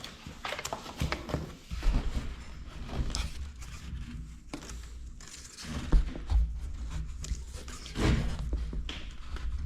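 Poly strap being pulled tight through metal buckles by hand: scattered clicks, rustles and handling knocks, with dull thumps about 2, 6 and 8 seconds in.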